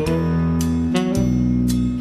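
Instrumental music: a run of plucked string notes over held bass notes.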